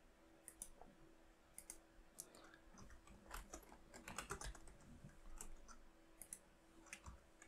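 Faint typing on a computer keyboard: irregular clusters of light key clicks as text is entered into form fields.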